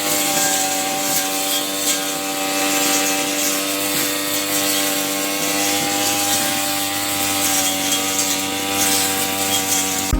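A small motor-driven tool running steadily at an even pitch, with a continuous rasping, grinding noise over it.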